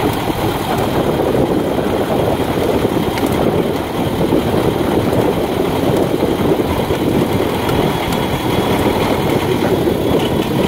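Tractor diesel engine running steadily at low revs.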